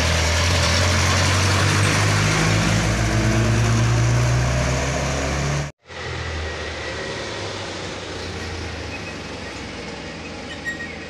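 Old truck's diesel engine pulling hard as it drives close past, its pitch rising slightly. Near the middle it cuts off abruptly, and quieter engine noise from a box truck and a minibus farther down the road follows.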